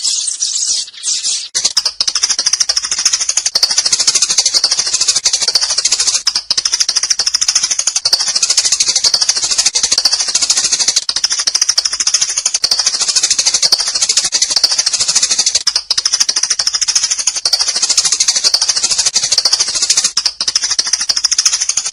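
Sparrows chirping in a dense, rapid, high-pitched chatter; separate chirps give way to a continuous chorus about a second and a half in.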